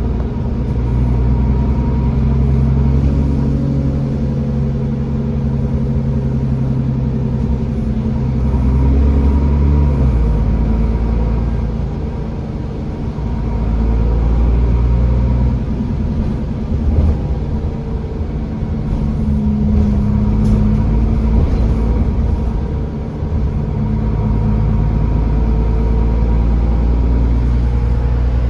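Diesel bus engine pulling the bus along, heard from on board, with a steady high whine from the turbocharger over the engine note. The engine note eases off and builds again about ten seconds in and again near the end.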